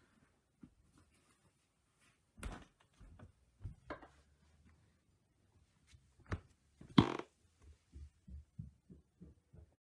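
Scattered knocks and thumps with faint room noise between them. The loudest is a sharp knock about seven seconds in, and a run of soft, quick knocks follows near the end.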